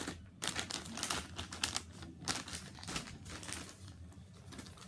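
Plastic packaging crinkling and rustling as it is handled and opened, in a quick run of irregular rustles that thin out near the end.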